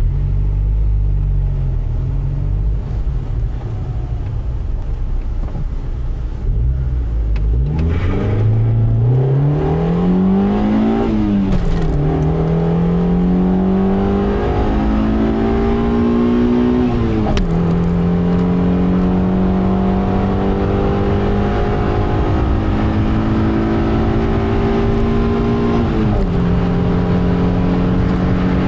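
Honda Civic's D14A1 1.4-litre four-cylinder engine heard from inside the cabin, running low and steady at first, then accelerating flat out from a standstill. Its pitch climbs through first gear, dips at each of three upshifts and climbs again, each gear pulling longer and more slowly than the last, on an engine with 277,000 km on it.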